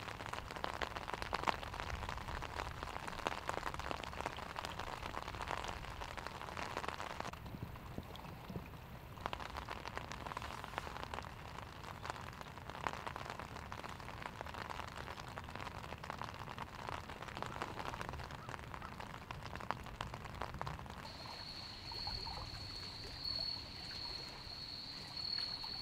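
Steady rain falling on an umbrella over the recorder and on the lake, with many separate drops ticking on the umbrella over a constant hiss. In the last few seconds a steady high insect trill comes in.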